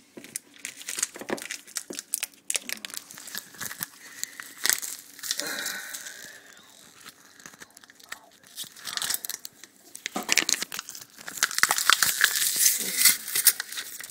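Frozen creamed chipped beef packet being ripped open by hand, with irregular tearing and crinkling crackles in several spurts. The longest and loudest stretch comes near the end.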